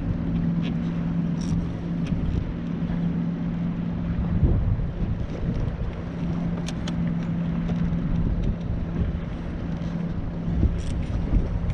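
Wind rumbling on the microphone over a steady low drone like a distant motor, with a few sharp clicks.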